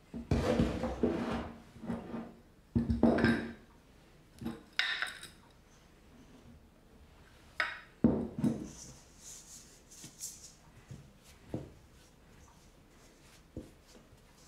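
A metal mixing bowl being handled on a wooden worktop: scraping and knocking in irregular bursts as the mixture in it is worked by hand, some knocks briefly ringing. Sharp clinks come about eight seconds in as a glass flip-top jar is handled, and lighter knocks follow near the end as the bowl is tipped.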